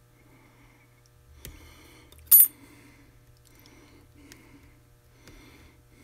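A man's wheezy breathing close to the microphone, in regular breaths about a second apart, while he works the foil shield back on a piece of coax. About two and a half seconds in there is a single sharp metallic clink, the loudest sound, with a lighter click a second before it. A faint steady low hum runs underneath.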